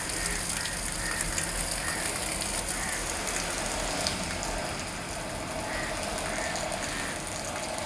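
Steady hiss of water sprayed from a hose into a stainless-steel chemical tanker's compartments, rinsing out the caustic wash with clean water. A low rumble underneath fades out about halfway through.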